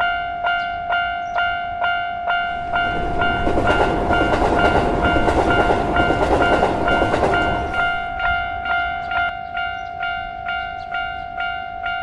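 Railroad crossing bell ringing, about two strikes a second. A passing train's rumble swells in under it from about two and a half seconds in and fades out near eight seconds.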